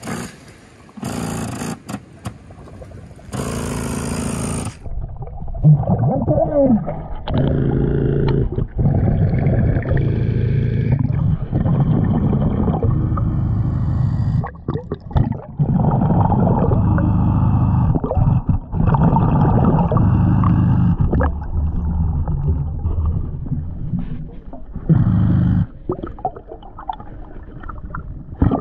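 A diver going under and breathing underwater through a Nomad surface-supplied air system, heard muffled through the submerged camera: a few seconds of splashing at the surface, then a low rumble and bubbling that rises and falls every few seconds.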